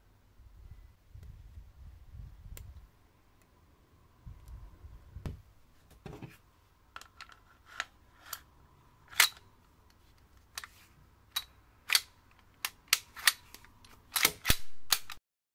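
Hands working the slide and frame of a SIG Sauer P320 M17 gas-blowback airsoft pistol: soft rubbing and handling at first, then a run of sharp plastic and metal clicks and snaps as the slide is fitted onto the frame and parts click into place, the loudest clicks near the end.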